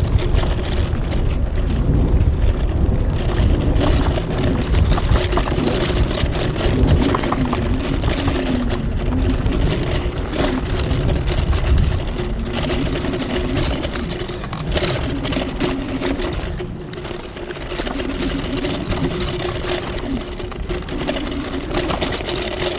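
TRBK-M2 electric hyperscooter riding over a rough dirt trail: a motor whine that rises and falls with speed over a steady hum, with heavy rumble from the tyres and ground, rougher in the first half.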